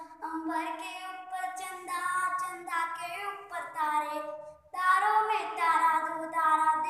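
A young boy singing a song solo, his voice holding and sliding between sung notes, with a short pause for breath about four and a half seconds in.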